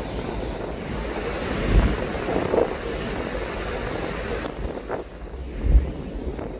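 Wind buffeting the microphone over the steady rush of the sea and the ferry's wake, with two stronger gusts.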